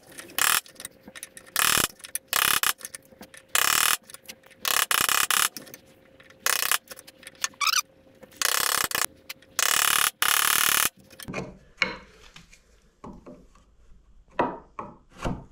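A chisel scraping and paring along the inside of a hardwood mortise: a run of short rasping strokes, each under a second, as the waste is cleaned out to depth. In the last few seconds they give way to lighter, shorter clicks and taps.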